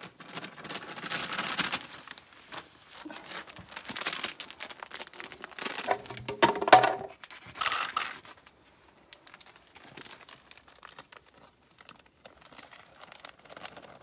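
Plastic food packaging crinkling and being torn open in several bursts, the loudest about six to seven seconds in, then fainter rustling.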